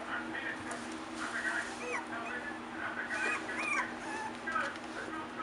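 Four-week-old rat terrier puppies whining and squeaking, many short cries that rise and fall in pitch, several overlapping, over a steady low hum.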